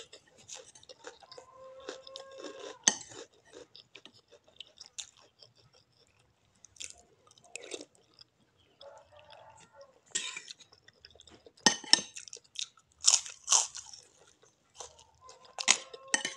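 Close-up mouth sounds of someone chewing a crisp cracker (kerupuk): irregular crunches with short pauses, the loudest bites coming in the second half.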